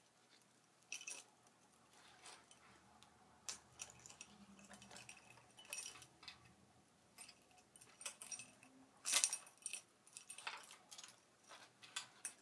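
Metal blades and wire arms of a collapsible forearm spinnerbait clinking and jangling irregularly as it is fumbled with by hand. The loudest rattle comes about nine seconds in.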